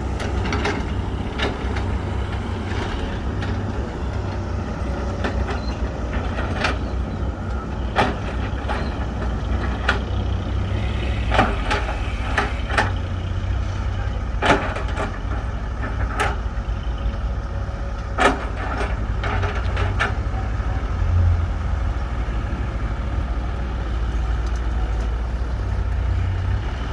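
Heavy diesel machinery running steadily with a deep rumble as an excavator loads a dump truck, with a few sharp knocks and clanks scattered through, about one every second or two in the middle stretch.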